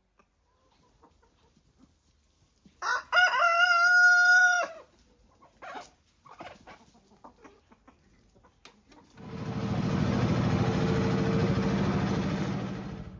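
A rooster crowing once, about three seconds in: one long call, held and then dropping off at the end. A few seconds later a steady rushing noise with a low hum in it starts and runs for about four seconds.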